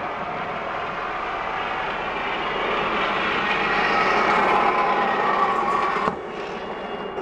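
Zipline trolley wheels running along the steel cable, a rushing whir that grows louder as the rider approaches, then drops away suddenly about six seconds in.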